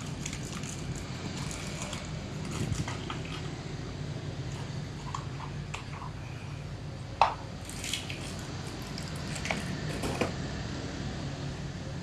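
Motorcycle engine running steadily at riding speed, with scattered clicks and knocks, a sharp one about seven seconds in.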